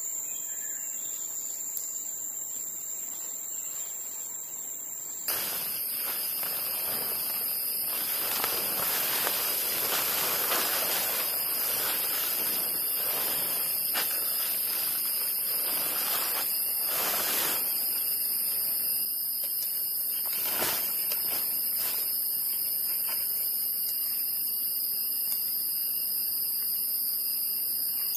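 Forest insect chorus buzzing at a steady high pitch, jumping louder and shriller about five seconds in. Under it come rustling and scattered knocks of tent fabric and poles being handled.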